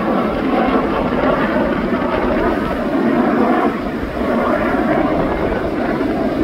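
Display aircraft flying past, a loud, steady engine noise that holds without a break.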